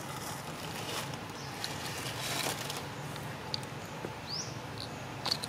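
Outdoor ambience with a brief rustle about two seconds in and a few faint, short high chirps, one of them rising, in the second half.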